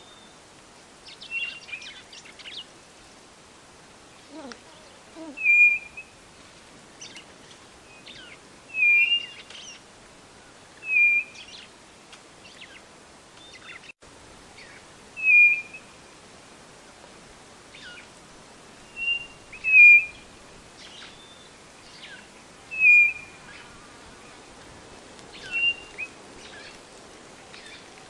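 White-bellied nothura (codorna-do-nordeste) calling: short whistled notes repeated every two to four seconds, about eight in all. Fainter quick chirps of other birds or insects sound between them.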